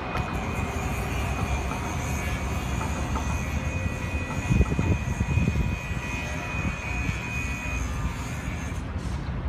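Siemens-Duewag U2 light-rail train running past and away from the crossing: a low rumble with a steady high whine that stops about eight seconds in.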